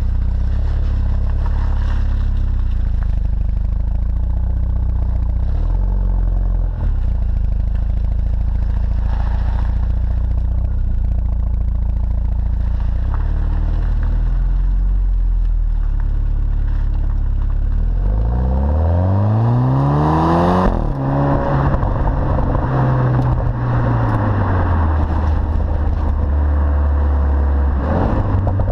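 Exhaust note of a BMW Z4 sDrive20i's turbocharged 2.0-litre four-cylinder, heard right at the twin tailpipes while driving. It holds a steady low drone for most of the time, then about two-thirds of the way in the revs climb sharply under acceleration before the note drops back and settles again.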